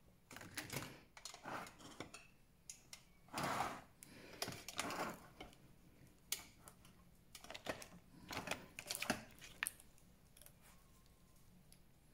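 Cosmetics gift box being unpacked by hand: rustling of packaging and padding with light clicks and clatter of bottles and pots being moved, in irregular bursts.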